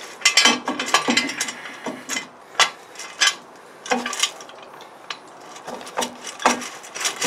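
Irregular metal knocks and clicks from a steel axle stand being set in place under the car.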